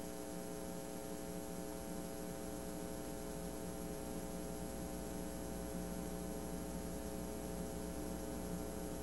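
Steady electrical mains hum, made of several evenly spaced tones, over a faint even hiss, with a thin high whine on top. It is the recording's own background noise, with no other sound.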